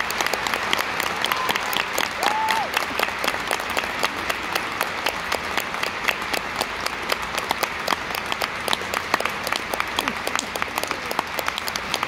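A theatre audience applauding: dense, steady clapping from a full house, the ovation at the end of a musical's finale as the cast bows.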